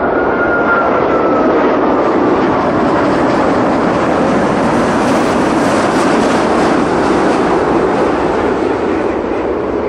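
Thai Airways Airbus A380's four Rolls-Royce Trent 900 turbofans running on landing approach as the airliner passes low overhead: a loud, steady jet roar with a high fan whine that drops slightly in pitch in the first second or so. The roar peaks around the middle and eases toward the end.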